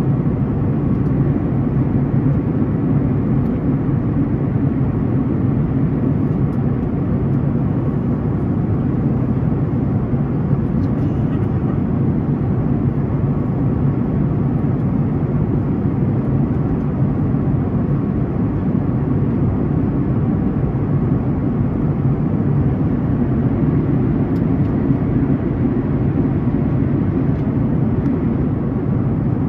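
Steady cabin drone of a Boeing 737-900ER in cruise, heard inside the cabin beside the wing: the CFM56-7B turbofan and rushing air, a deep, even noise.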